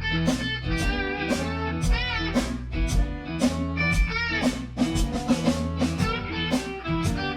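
Background music: a blues-style track with electric guitar and a drum kit keeping a steady beat.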